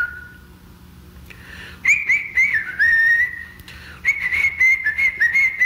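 A high whistling melody with notes that slide into one another. It drops out for about the first two seconds, comes back briefly, pauses again, and resumes near four seconds in.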